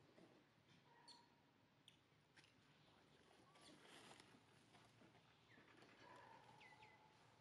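Near silence: faint outdoor background with scattered soft ticks and a few short, high chirps.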